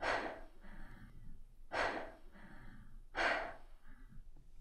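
A person breathing hard: three heavy exhales about a second and a half apart, with fainter inhales between them.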